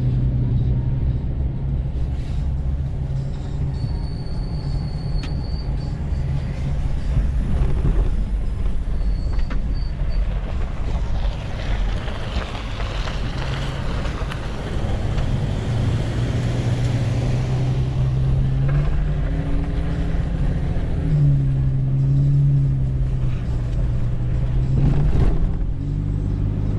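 Toyota FJ Cruiser's V6 engine and road rumble heard from inside the cabin while driving. The engine hum shifts in pitch a few times as the speed changes.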